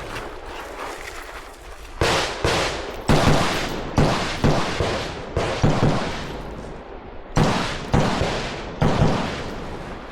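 Rifle shots fired during an IPSC rifle course of fire: about a dozen loud cracks, many in quick pairs, a pause between groups, each trailing a rolling echo.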